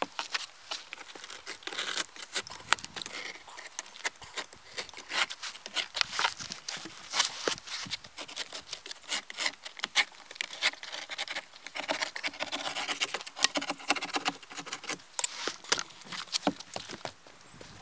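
Roofing felt being handled and worked along a roof edge: irregular scraping, crinkling and tearing sounds mixed with many small clicks.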